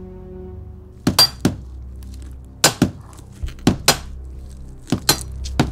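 Sharp chopping blows, struck mostly in quick pairs about every second and a quarter, beginning about a second in.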